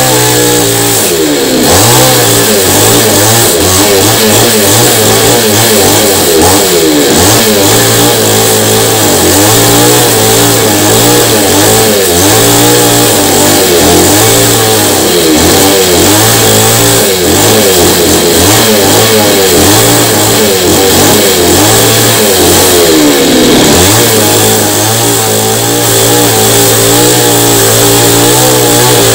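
Two-stroke chainsaw idling, then revving up about a second and a half in and cutting across the face of a rain-tree root slab to level it. The engine pitch rises and falls with the load for about twenty seconds, dips near the end, and settles back to a steadier, lower note.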